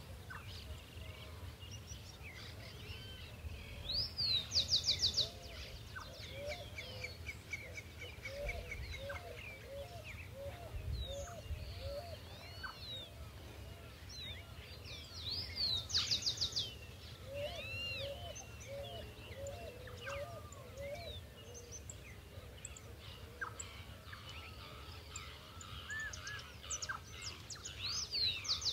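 Rural outdoor ambience of birds calling. Three times, about twelve seconds apart, one bird gives a loud phrase: a rising note followed by a quick run of notes. Lower chirps come in clusters over a steady low rumble.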